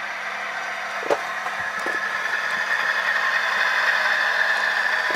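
Tsunami sound decoders in HO-scale GE GEVO model diesel locomotives playing their engine sound through small speakers, running steadily and growing gradually louder as the models reverse. There is one sharp click about a second in.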